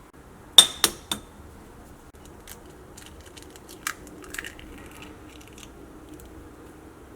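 An egg tapped three times in quick succession against the edge of a bowl to crack the shell, followed by a few fainter clicks of shell against the bowl as the egg is opened for separating.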